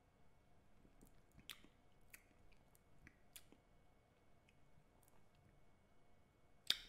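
Near silence with faint mouth clicks and lip smacks as a sip of beer is tasted, with one sharper smack near the end.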